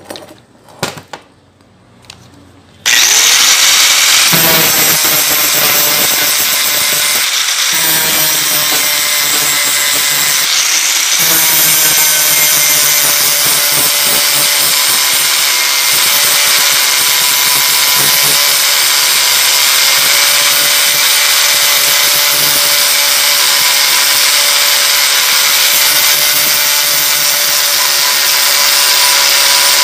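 Handheld angle grinder switched on about three seconds in after a few handling clicks, spinning up with a short rising whine, then grinding a weld on thin steel square tubing flat: a steady high whine over the hiss of the disc on steel, the grinding noise dipping briefly twice.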